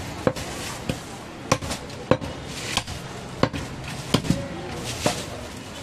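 Butcher's knife chopping goat meat against a wooden chopping block. There are about nine sharp knocks, roughly two-thirds of a second apart, with two in quick succession a little past the middle.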